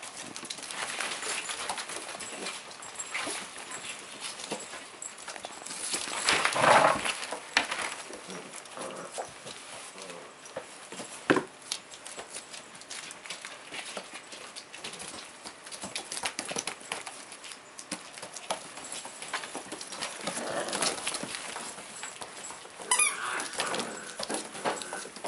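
Several puppies playing on a hard floor: paws scrabbling and clicking, with occasional puppy yips and growls. The busiest moment comes about six to seven seconds in, with a sharp knock near eleven seconds.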